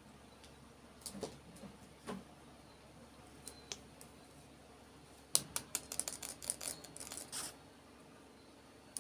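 Small packaging being opened by hand: a few light clicks and taps, then about two seconds of quick, crisp clicks and crinkles.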